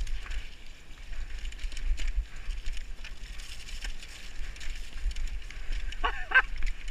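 Mountain bike descending a dirt trail at speed: tyres rolling over the dirt with a few sharp knocks and rattles from the bike, under a steady low wind rumble on the microphone. A brief shout about six seconds in.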